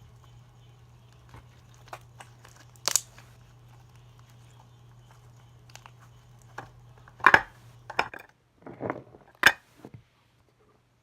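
Slime being squeezed and poked by hand: scattered small crackles and pops, with a few louder sharp crackling snaps, most of them in the second half. A steady low hum lies underneath and stops about eight seconds in.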